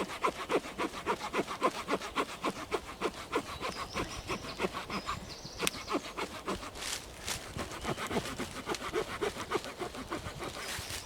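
The wood-saw blade of a Victorinox Ranger Grip 55 pocket knife sawing back and forth through a thick log. It makes a steady rasp of about four strokes a second.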